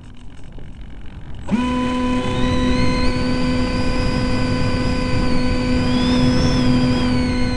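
Wind rushing past an RC model plane, then about a second and a half in its 2835/16 brushless motor and propeller switch on sharply. The motor runs steadily, a hum with a high whine that climbs briefly and then holds.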